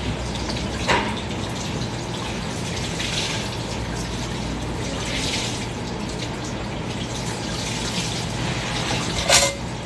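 Steady rushing kitchen background noise with a low hum, broken by a light knock about a second in and a sharp clatter near the end.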